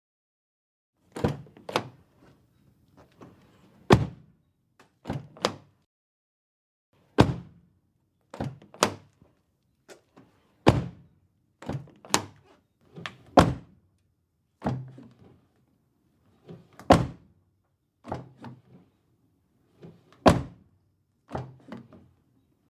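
A car door repeatedly opened and shut: latch clicks and handle pulls followed by heavy closing thuds, about a dozen slams in irregular succession with silence between.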